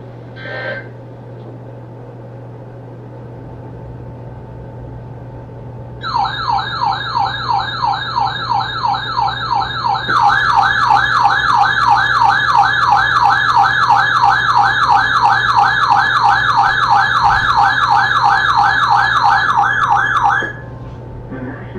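Weather radio alert siren: a fast, repeating rising sweep that starts about six seconds in, gets louder a few seconds later and cuts off shortly before the end, signalling that a new warning is coming in.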